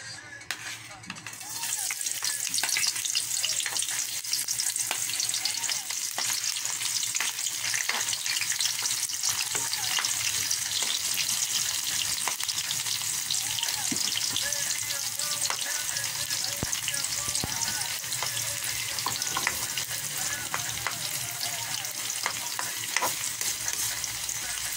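Sliced onion and garlic sizzling in hot oil in a metal wok, the sizzle starting suddenly about a second and a half in as they go into the pan and then holding steady. A spatula stirs and scrapes them around the wok throughout, with light clicks against the metal.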